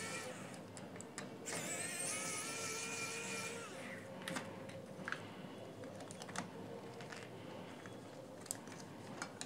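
Electric precision screwdriver whirring steadily for about two seconds as it backs out a screw. It is followed by a few light, scattered plastic clicks as the loosened speaker driver is handled.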